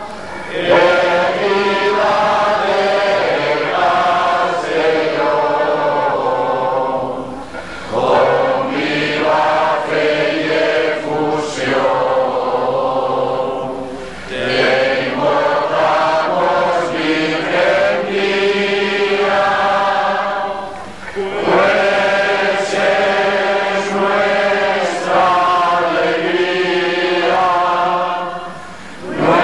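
Many voices singing a hymn together in long phrases of held notes, with short breaks between phrases about every seven seconds.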